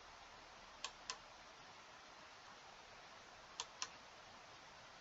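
Computer mouse clicks over near silence: two quick double clicks, about a second in and again near four seconds.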